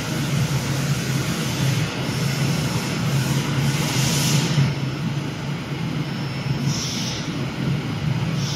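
Steady low mechanical rumble with a hum underneath, and short hissing bursts about three to four and a half seconds in and again around seven seconds.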